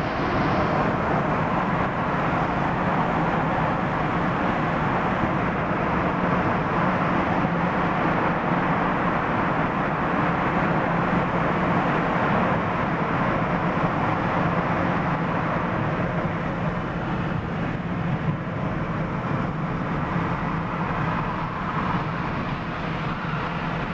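Steady road noise of a car driving through a road tunnel, heard from inside the cabin: tyre and engine hum with a constant low drone. It gets a little quieter in the last few seconds as the car leaves the tunnel.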